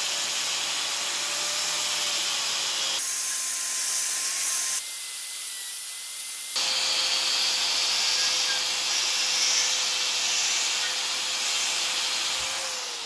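Angle grinder running with a thin 3D-printed PLA plastic cutoff disc pressed into a block of wood: a steady high whine over a harsh grinding hiss. The plastic disc is melting and smearing onto the wood rather than cutting it. The sound changes abruptly a few times, and near the end the whine falls as the grinder winds down.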